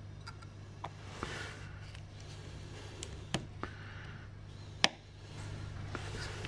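A lid being fitted and pressed onto a film canister by gloved hands: glove rustling and several small clicks and taps, the sharpest click about five seconds in, over a low steady hum.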